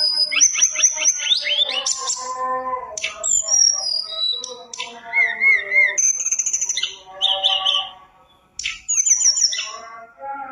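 Caged tledekan gunung (sulingan gunung) songbird singing loudly: a rich, fast-changing run of clear whistles, trills and wavering notes, with one short pause about two-thirds of the way through.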